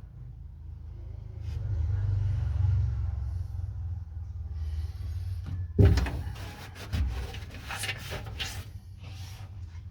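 Tools being handled in a home garage: a low rumble, then a sharp knock about six seconds in and a second one a second later, followed by a few lighter clicks.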